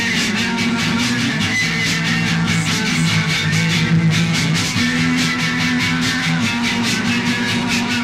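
Post-punk rock recording: electric guitar and bass guitar over a steady drum beat.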